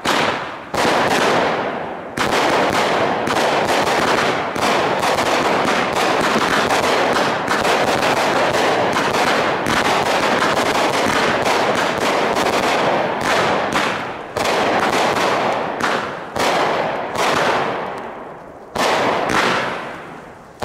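Four fused Mad Ox Fruit Punch 200-gram, 12-shot aerial firework cakes firing in quick succession: sharp shots and bursting bangs overlap into a near-continuous barrage, then thin out to about one shot a second near the end.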